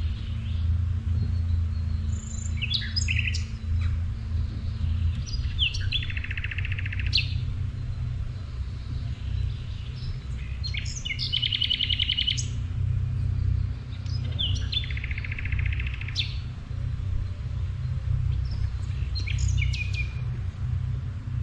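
A songbird repeating its song about every four seconds, five times: a few quick chirps running into a buzzing trill of about a second. Under it runs a steady low rumble.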